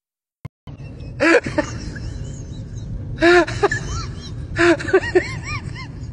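A high-pitched voice in three short bursts about a second and a half apart, each a rasping onset followed by a few quick rising-and-falling notes, over a steady low hum. A single faint click comes about half a second in, after a moment of silence.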